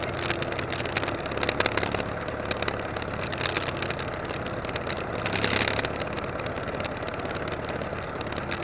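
1959 McCormick B275 tractor's 2.3-litre four-cylinder diesel engine running steadily, with a few sharp clicks about a second and a half in and a brief louder rushing noise a little past halfway.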